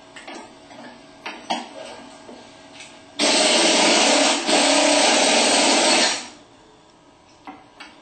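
Half-inch impact wrench with a 15/16 socket runs loud for about three seconds, with a brief dip in the middle, spinning the pulley nut off a Ford alternator's shaft. A few light knocks and clicks come before it as the socket goes onto the nut.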